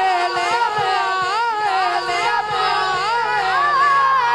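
A man singing a naat (Punjabi kalam) in long, drawn-out notes that waver up and down in ornamented swoops.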